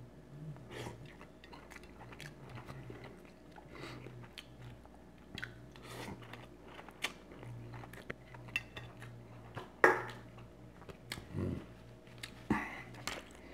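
A person chewing food close to the microphone, with wet mouth clicks and smacks, and one sharper knock about ten seconds in, over a steady low hum.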